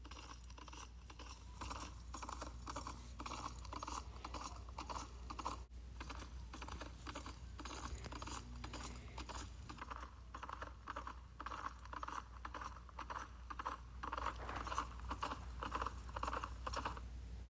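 Light, quick clip-clop of walking hoofbeats for toy horses, a continuous run of small taps over a low steady hum.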